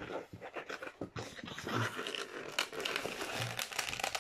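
Latex modelling balloon rubbing and squeaking under the fingers as its small twisted bubbles are pressed and adjusted, in irregular short crackles and squeaks.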